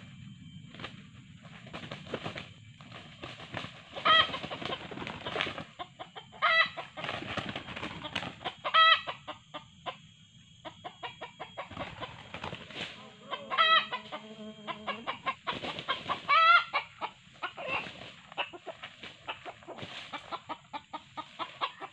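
Red junglefowl roosters clucking rapidly, with five loud, short, sharp calls spread through.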